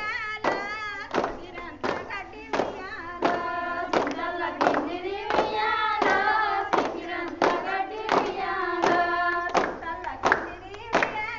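Group of women singing a Bathukamma folk song together, clapping their hands in unison on a steady beat about one and a half claps a second.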